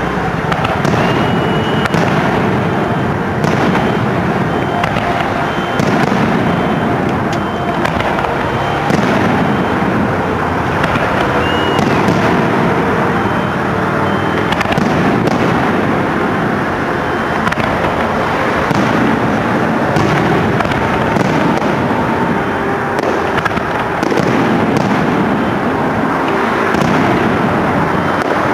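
Aerial firework shells launching and bursting in quick succession, with many sharp reports over a continuous dense noise.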